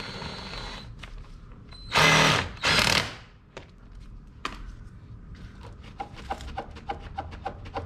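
A power tool whirring, stopping about a second in, then two short, loud bursts around two and three seconds in, followed by a string of light clicks.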